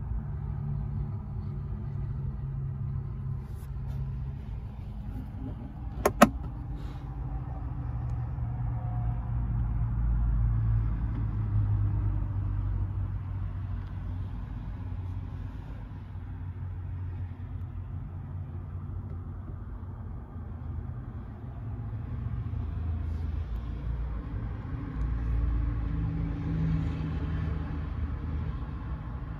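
Low steady rumble inside an SUV cabin. About six seconds in there is a sharp double click, which fits the centre-console storage lid being shut.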